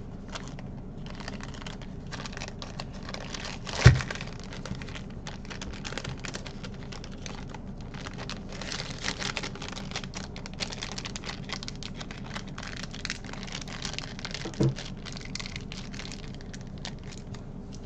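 Clear plastic bag crinkling as a stack of trading cards is handled and put back into it. A sharp knock about four seconds in and a weaker one near the end.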